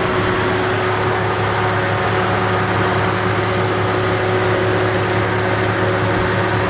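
Car engine idling steadily, an even low hum with a constant tone and no change in speed.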